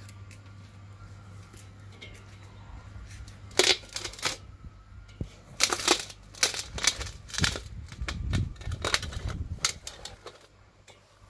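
Plastic and cardboard packaging rustling and crackling as it is handled or shifted, in irregular clusters of sharp crinkles and clicks with a few low bumps, over a steady low hum.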